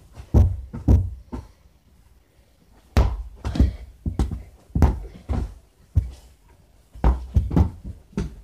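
Dull thuds of a rubber playground ball being kicked and bouncing off the floor and closet, mixed with footfalls on carpet, in uneven clusters of a few knocks each with a quieter stretch between.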